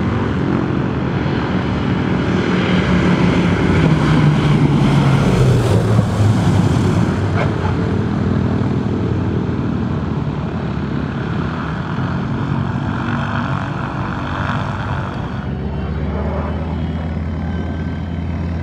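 Douglas DC-3's twin radial piston engines droning as it comes in low and lands, the engine note sliding down about five seconds in. The drone then runs steadily as the plane rolls along the runway, changing to a lower steady drone near the end.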